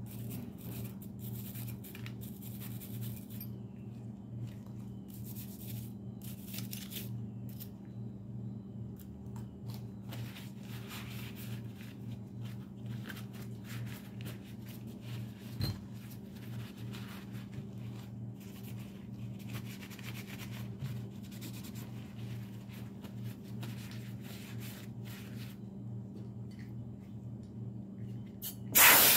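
Cloth and cleaning tools rubbing and scraping on a disassembled pistol's slide and parts, soft irregular strokes over a steady low hum. Near the end, a short loud hiss of an aerosol gun-cleaner can sprayed onto the slide.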